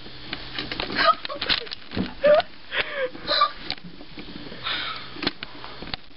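A girl laughing breathlessly in wheezing, gasping bursts, loudest in the first half. A few short knocks and rustles come near the end.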